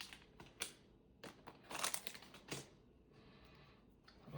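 Foil booster-pack wrapper crinkling as it is handled, in a few short, faint rustles.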